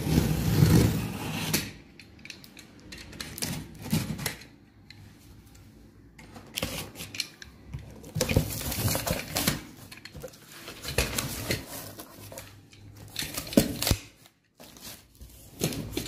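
Cardboard shipping carton being opened by hand: packing tape cut and pulled off and the flaps worked open, in irregular bursts of scraping and rustling with sharp knocks and clicks.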